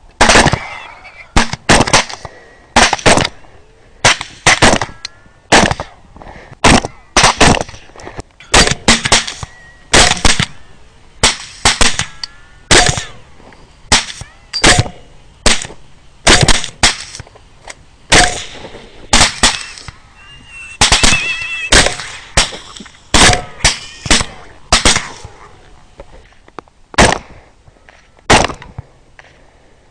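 Rifle shots fired at feral hogs in rapid strings, about thirty in all, often two or three close together, each a sharp crack with a short ring after it. A brief high-pitched squeal is heard about 21 seconds in.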